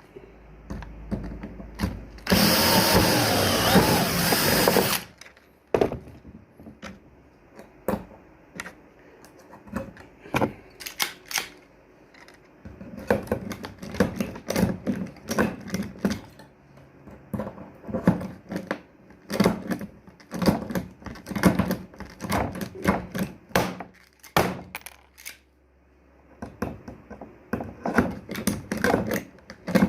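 Hand tools and metal parts worked on a sliding shower-door frame: irregular clicks, taps and knocks, with a loud burst of rasping noise lasting a couple of seconds near the start.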